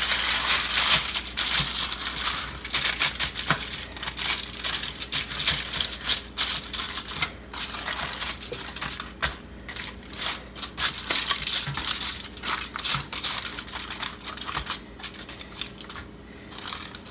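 Aluminium foil crinkling as hands press and smooth a sheet of it over a baking tray, a dense run of crackles with a few brief pauses.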